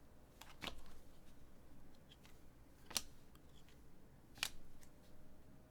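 Faint handling of trading-card packs and cards: a few sharp clicks and snaps, with light rustling between.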